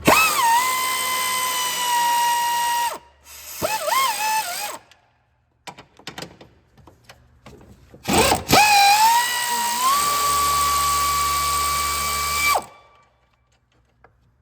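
Power tool spinning the 14 mm top-mount nuts off a strut's studs. The motor whine rises quickly to a steady pitch in three runs: a long one at the start, a short blip, then a longer one from about 8 to 12.5 seconds, each stopping abruptly.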